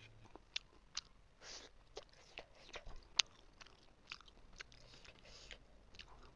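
Close-miked chewing of a mouthful of steamed chicken momo: soft, wet mouth smacks and clicks at irregular moments, with a few short hissy sounds between them.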